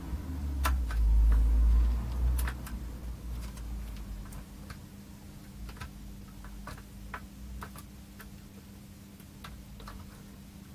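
Small metal tool clicking and ticking irregularly against the legs of a chip being worked free of a circuit board after desoldering, with a low rumble over the first couple of seconds and a faint steady hum underneath.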